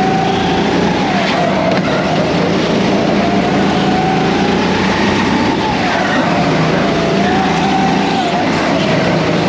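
Racing kart at speed, recorded onboard: the motor's pitch rises and falls several times as the kart accelerates and slows, over loud steady noise.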